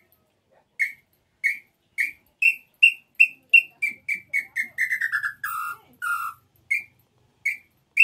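Hand-blown tinamou call (pio) imitating the small-billed tinamou (inhambu-chororó, 'pé-vermelho'). It plays a run of short whistled notes that come faster and climb in pitch, then fall away into a quicker, lower run, followed by a few spaced notes.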